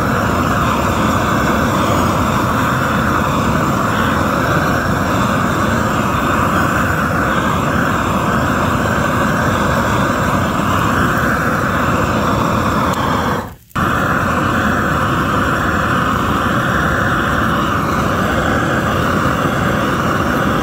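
Handheld gas cooking torch burning at full flame with a loud, steady rushing hiss as it sears a steak. The sound drops out for a moment about 13 seconds in, then carries on the same.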